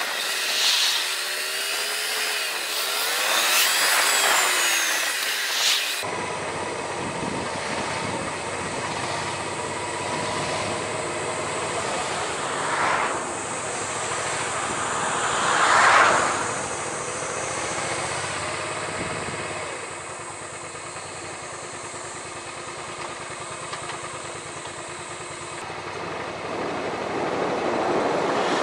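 Suzuki SV400S V-twin motorcycle heard from the rider's camera. For the first few seconds the audio runs at double speed and the engine's pitch rises and falls with the revs; then it cuts to normal speed at low speed in slow traffic, a steady engine note under wind and road noise, with two brief louder swells near the middle.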